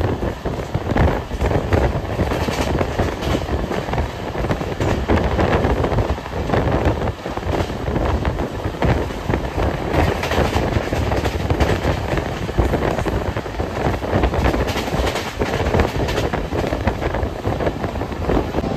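Express passenger train running fast, heard from an open coach doorway: a steady rumble of the coach, with repeated clicks of the wheels over rail joints.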